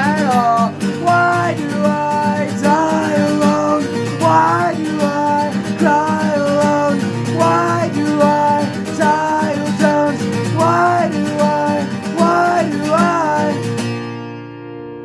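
Strummed acoustic guitar under a melody sung without words, the voice sliding into its notes. Near the end the playing stops and the last chord rings on.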